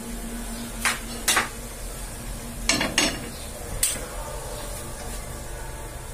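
Aluminium cooking pan handled on a stove top, making several sharp metal clanks in the first four seconds.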